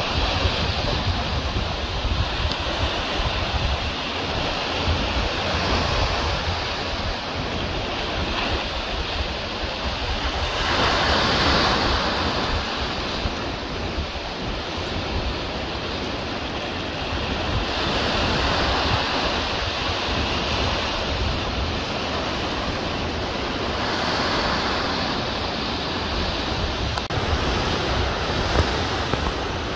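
Ocean surf breaking on a rocky shore: a continuous wash that swells louder every six or seven seconds as waves come in.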